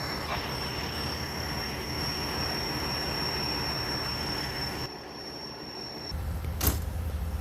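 Large vehicle engines running, with a steady high-pitched whine that cuts off about six seconds in. A deeper engine rumble then rises, and a sharp knock follows shortly after.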